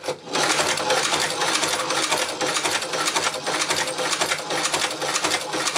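Hand-cranked Chinese shoe patcher (cobbler's) sewing machine stitching through two layers of leather, with a rapid, rhythmic clatter of the needle bar and mechanism starting a moment in as the handwheel is turned.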